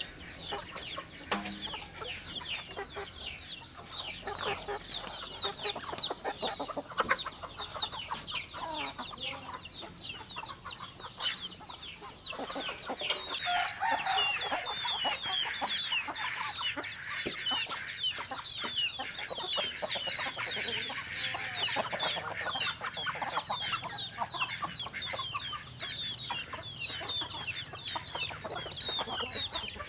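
A flock of chickens clucking and chirping without a break, many short, high calls overlapping, growing busier about halfway through.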